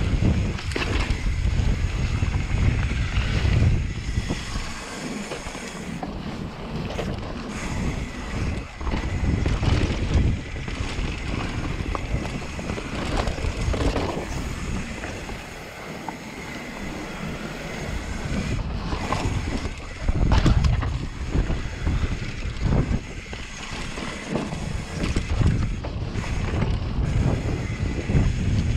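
Wind rushing over a GoPro action camera's microphone on a mountain bike running fast down a dirt trail, surging and easing in gusts, with the bike's tyres on dirt and frequent rattles and knocks over bumps.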